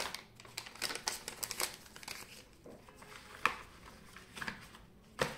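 Paper rustling and crinkling as a paper bill and card inserts are handled, with scattered light ticks and a couple of sharper clicks, one about three and a half seconds in and one near the end.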